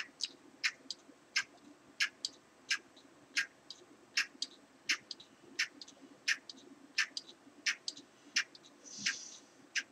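Hand oil-pump plunger on a Brown & Sharpe milling machine housing being pushed over and over, giving a sharp squeaky click about every three-quarters of a second with fainter clicks in between, as synthetic 10W30 oil is pumped toward the arbor. A brief hiss comes near the end.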